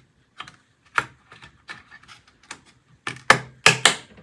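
Plastic clicks of a DDR5 memory stick being pushed into a motherboard DIMM slot, ending in a few loud snaps about three seconds in as the module seats and the slot's latches lock.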